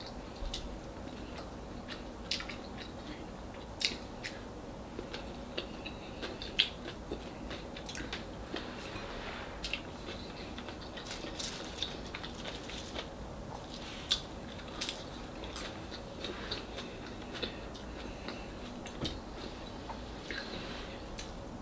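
A person chewing fried fish and corn rice while eating with her hands, with irregular small clicks and smacks from her mouth and fingers against the bowl, over a faint steady room hum.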